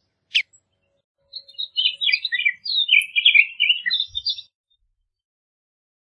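Bullock's oriole singing: one short call sliding down in pitch, then a quick run of varied high notes lasting about three seconds.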